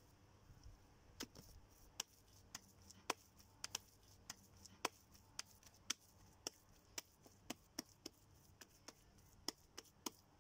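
Repeated sharp knocks at an uneven pace of roughly two a second, starting about a second in.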